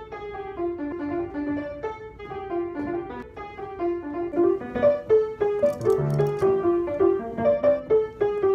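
Piano playing a run of quick melodic notes, growing louder about five seconds in, with a few sharp clicks around six seconds.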